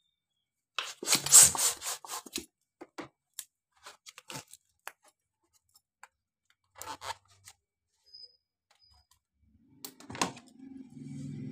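Small latex balloons rubbing and squeaking as they are handled and one is stretched onto a plastic hand-pump nozzle: a burst of crackly rubbing about a second in, then scattered soft rubs and clicks. A steady low hum starts near the end.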